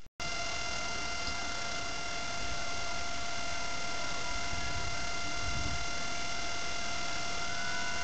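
Steady electrical hiss with a high whine of several constant tones: the recording's own noise floor, with no other sound over it. It gets slightly louder about two seconds in.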